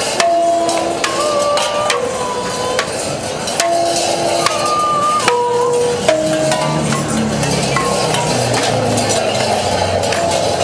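A woman sings long, held wordless notes that step from pitch to pitch, over sharp clinks and knocks from tin cans hung on a costume. About two-thirds of the way through the singing stops and a steady rattling and clinking of the cans takes over.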